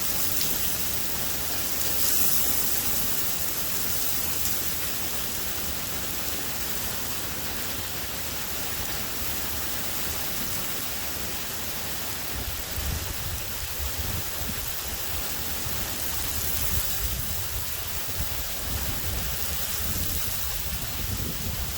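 Heavy rain falling steadily in a severe thunderstorm, with a low rumble joining in about halfway through.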